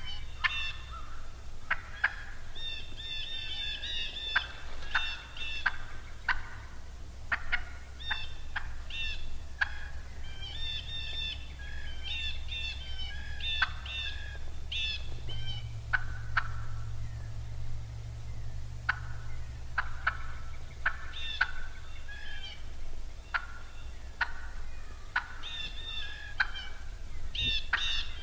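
Wild turkey hen cutting: irregular, excited bursts of rapid, sharp clucks mixed with yelps that keep coming in runs with short breaks between them.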